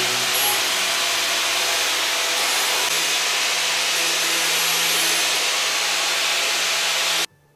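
Handheld power tool running steadily while deburring the edges of a painted Land Rover Defender body panel, ready for paint. It cuts off suddenly near the end.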